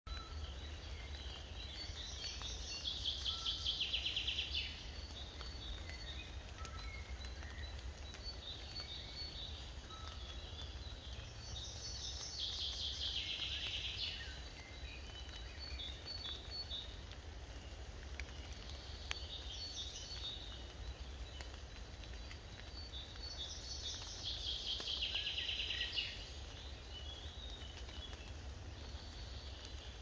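Birds singing: a fast trill comes three times, about ten seconds apart, over scattered short high chirps, with a low steady rumble underneath.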